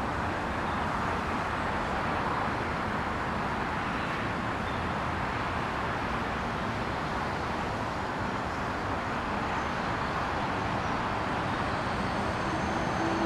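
SNCF BB 26000-class electric locomotive hauling a container freight train, approaching with a steady rushing rumble of wheels on rail. It grows slightly louder near the end, where a faint steady whine comes in.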